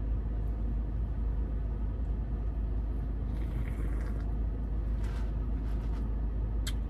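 Steady low rumble of a car idling, heard inside the cabin. A soft sip from an iced-coffee cup comes about three and a half seconds in, and a sharp click near the end.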